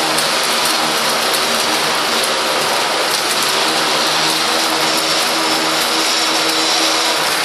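A vehicle engine idling steadily under a constant hiss of rain.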